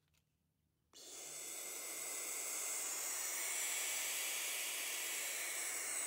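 Barn owl nestlings hissing: one long, steady, raspy hiss that starts about a second in.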